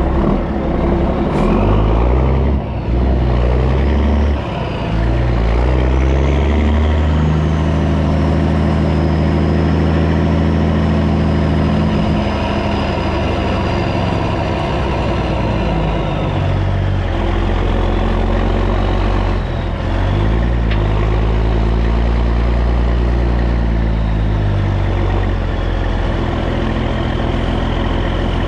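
Kenworth T800 semi truck's diesel engine pulling a loaded lowboy, running loud, its pitch climbing and dropping back several times as it shifts through the gears.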